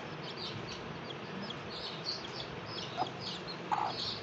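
Baby chicks peeping continuously in quick, high-pitched, downward-sliding chirps, with the mother hen giving a couple of low clucks about three seconds in and near the end.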